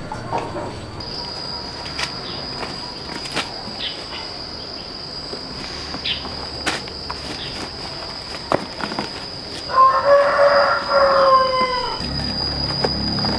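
A rooster crows once, about ten seconds in, in one call lasting nearly two seconds that drops slightly at the end. Underneath it runs a steady high-pitched whine, with scattered clicks and rustles.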